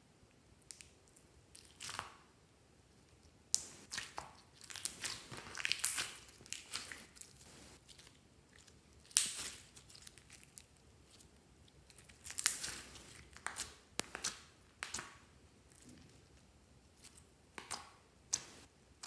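Clear slime full of sequins being pressed, squeezed and stretched by hand, making irregular sticky crackles and clicks that come in bunches.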